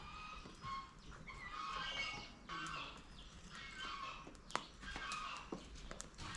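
Short, repeated animal calls, with a few sharp clicks, the clearest about four and a half seconds in.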